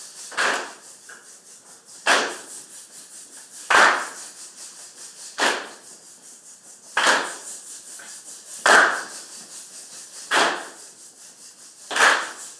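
A room full of band students clapping a rhythm together: a loud, slightly ragged group clap lands evenly about every 1.7 seconds, with softer, quicker clapping between.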